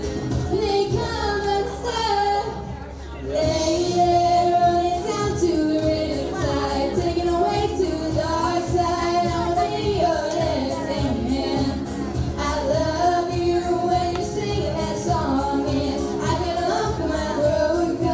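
Singing with instrumental accompaniment, a high voice carrying the melody; the music drops briefly about two and a half seconds in, then comes back.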